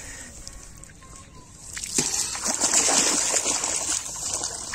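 Water splashing and sloshing in the shallows as a thrashing fish is grabbed by hand. It starts about two seconds in and keeps up as a dense run of splashes.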